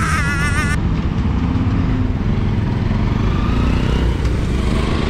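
Motorcycle engine running under way, with heavy wind rumble on the helmet-camera microphone and a faint rising pitch in the second half as the bike speeds up. A wavering shouted yell from a pasted-in meme clip cuts off abruptly under a second in.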